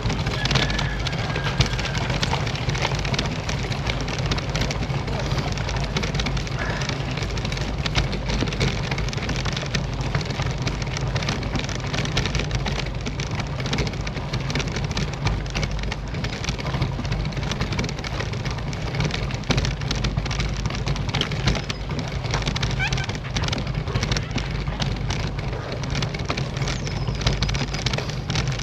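Road bike clattering over cobblestones: a dense, unbroken rattle of many small jolts with a low rumble underneath.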